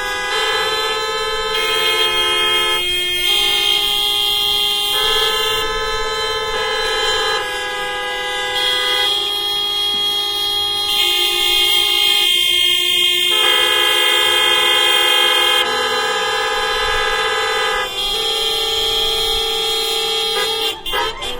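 Many car horns sounding together in a composed hocket. Long overlapping held honks change in combination every second or two, forming shifting chords. Near the end they break into short, rapid toots.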